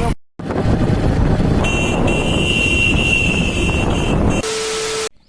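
Loud rushing noise of a moving vehicle with wind on the microphone, cut off abruptly by edits, with a steady high whistling tone over the middle of it.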